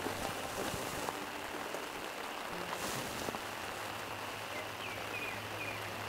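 Steady rain falling on the surface of a pond, an even patter of drops on water.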